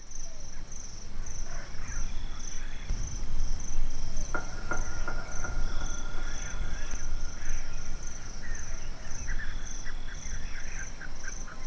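Crickets chirping in a steady pulse, about two to three chirps a second, over a high insect hiss, with scattered bird chirps. A long thin steady tone sets in about four seconds in, and a low rumble swells for a couple of seconds around the same time.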